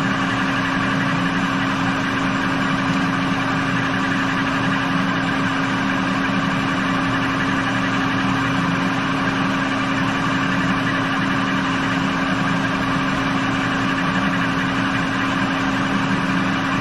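Steady machine hum of a manual lathe running on power from a rotary phase converter: a constant drone with one strong low tone that holds unchanged throughout.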